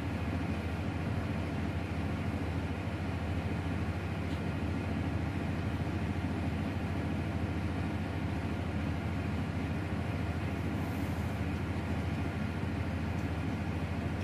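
Steady low drone of running engine machinery, with a few constant hum tones in it and no change in level.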